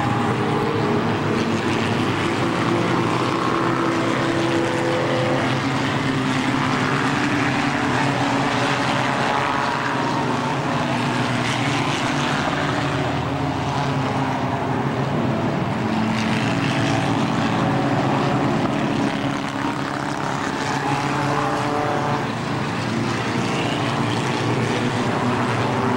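A pack of stock cars racing on an oval track: many engines running hard together as a continuous drone of overlapping engine notes that rise and fall a little as cars pass.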